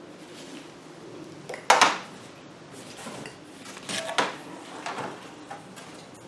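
Handling noises as a webbing strap is pulled loose from a soft-sided cooler and the cooler and a pink foam-board sled are moved on a tabletop: a brief, loud rasp a little under two seconds in, then a few smaller knocks and scrapes around four and five seconds in.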